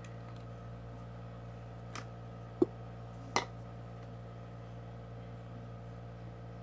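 Three short, light clicks and taps from slime-making supplies being handled, the middle one the sharpest, over a steady low hum.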